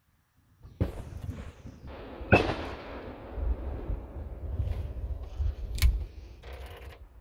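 Fireworks going off: a run of sharp bangs and cracks starting about a second in, the loudest about two seconds in and another near six seconds. Each bang trails off in a fading crackle over a low rumble.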